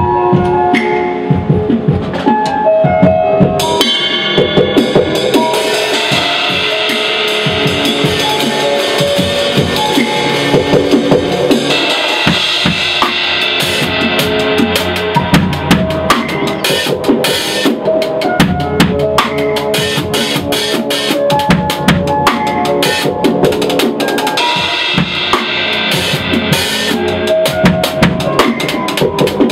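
Live band playing a song in rehearsal: a drum kit keeps a steady beat of kick and snare hits under sustained pitched instruments.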